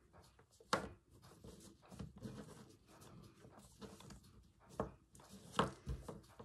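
Close handling of fabric and string as a strip is knotted on: soft rustling and rubbing, with a few sharp clicks as the beads and wooden cotton reels on the string knock together, the loudest about a second in and again near the end.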